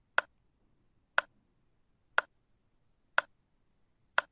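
Countdown-timer sound effect: a sharp tick once a second, five ticks, marking the seconds counting down to answer a quiz question.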